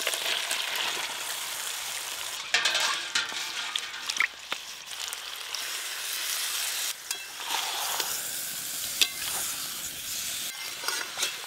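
Marinated young green jackfruit pieces sizzling as they are tipped into hot oil and fried spices (masala) in a metal wok. A metal spatula stirs them, scraping and knocking against the pan several times over the steady sizzle.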